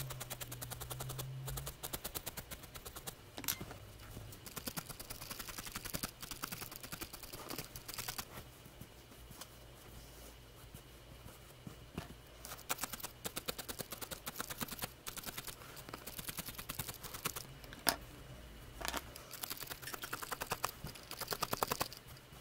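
Felting needle stabbing rapidly into a core of white wool, a fast run of small crisp pokes at several a second, in bursts with short pauses between them.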